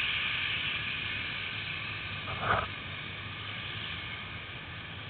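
ATV engines running as the quads wade through deep muddy floodwater, with water churning around the wheels, heard as a steady wash that slowly fades. A short louder sound breaks through about halfway.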